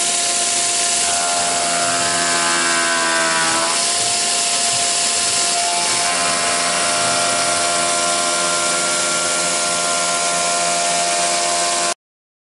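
Tormach PCNC 1100 mill spindle running with a large face-milling cutter over a brass workpiece: a steady machine whine of several tones. The pitch sags briefly about three and a half seconds in, and the sound cuts off suddenly just before the end.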